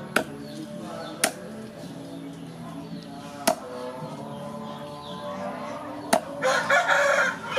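Meat cleaver chopping raw chicken on a wooden chopping block, four sharp strikes a second or more apart. A rooster crows near the end.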